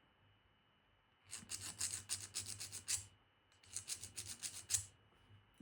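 A small hand file rasping in quick back-and-forth strokes on the worn inner housing of a lock cylinder, filing it down so it will slide free of the outer housing. Two runs of strokes, the first starting about a second in, with a short pause between them.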